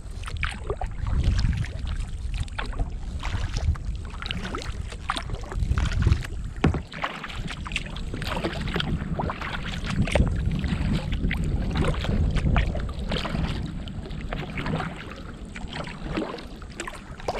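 Kayak paddle strokes dipping and splashing in the river water, with many small splashes and drips, over a steady low rumble.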